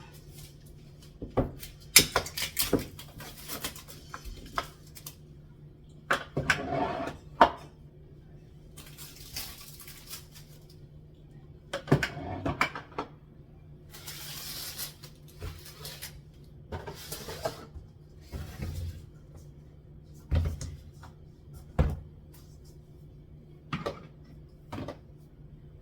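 Groceries and kitchen containers being handled in a cupboard: irregular knocks and clatters as cans and jars are picked up and set down, with a few longer stretches of rustling packaging.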